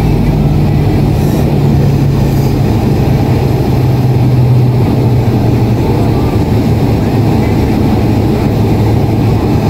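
Inside the cabin of a Boeing 767-400ER: the steady noise of its GE CF6-80C2 turbofan engines and rushing air, with a low hum that dips a little in pitch a few seconds in.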